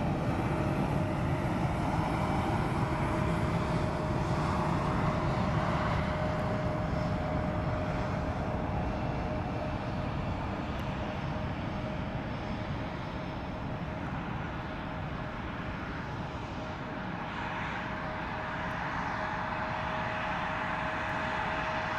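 Airbus A350-900's Rolls-Royce Trent XWB jet engines at takeoff thrust during the takeoff roll: a steady jet noise with a thin steady whine, easing a little midway and swelling again near the end.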